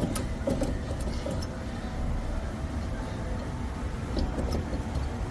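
Steady low mechanical rumble with scattered light clicks and knocks.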